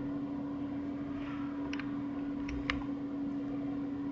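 Steady low hum and hiss of room noise, with a few short, quiet clicks of computer mouse and keyboard input: a pair near the middle and two more about a second later.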